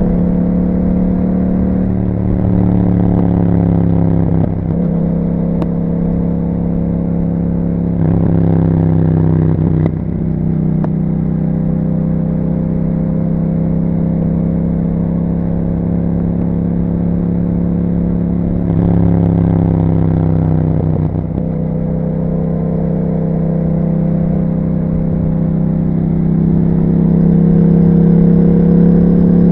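Yamaha MT-07 parallel-twin engine through an Akrapovič exhaust, riding under way. The engine note dips and climbs a few times in the first ten seconds and again about twenty seconds in, with throttle changes and gear shifts, and holds steady at cruise between. It climbs slowly near the end.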